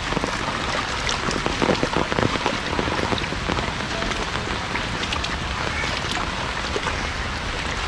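Heavy rain falling steadily on floodwater and on an umbrella held overhead: a dense, even hiss of drops with many small ticks.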